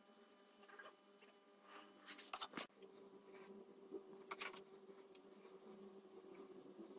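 Faint strokes of a paintbrush applying paint to metal brake parts, over a low steady hum. Two short bursts of clicking knocks come about two and a half and four and a half seconds in.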